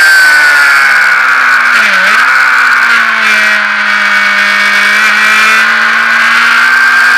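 Sport motorcycle engine running hard at high revs on a racetrack, with a brief dip in pitch about two seconds in, then a fairly steady pitch through the corner that begins to climb again near the end.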